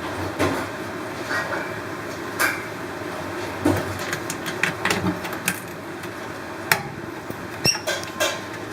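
Scattered clicks and light knocks of hands and tools at work, a dozen or so spread irregularly, over a steady background hum.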